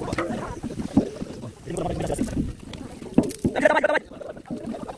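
A wooden paddle stirring onions frying in a large aluminium cooking pot, scraping and knocking against the metal a few times, with people talking.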